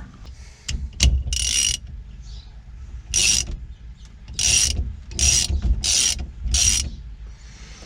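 Socket ratchet clicking in about six short strokes, turning the center bolt of a steering wheel puller to draw the steering wheel off.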